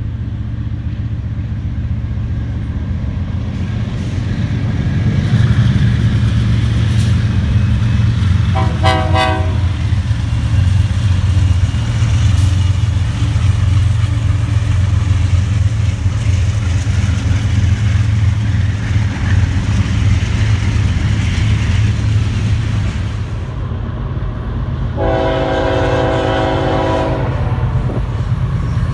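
BNSF diesel freight locomotives running past with a heavy, steady low rumble, and a short horn blast about nine seconds in. After a cut, an approaching BNSF freight train's horn sounds for a couple of seconds near the end.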